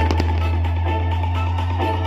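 Loud music over a sound system with a heavy steady bass, and a few sharp firework crackles near the start.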